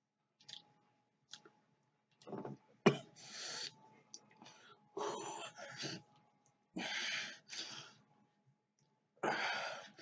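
A man breathing hard in a run of short, noisy breaths after a full spoonful of ghost pepper hot sauce, reacting to its burning heat. There is a sharp click about three seconds in.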